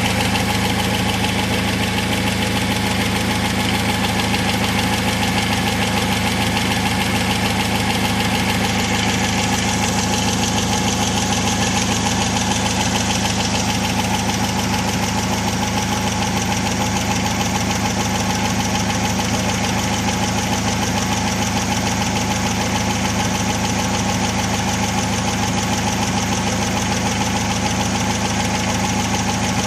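Chery Amulet's engine running steadily with a repetitive knock in it, a knock whose cause the owner is asking about.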